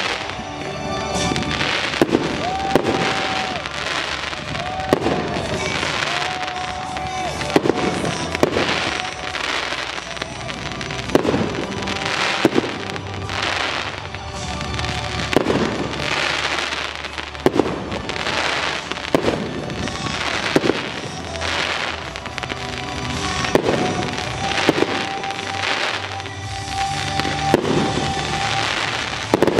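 Aerial fireworks display: shells and comets launching and bursting in a steady run of sharp bangs, about one every second or two, with music playing alongside.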